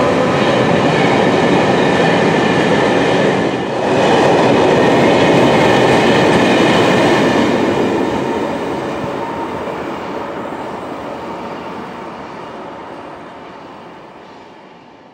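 Freight train hauled by a VR electric locomotive passing close by: the steady noise of wagons rolling on the rails. It dips briefly about four seconds in and fades away over the second half.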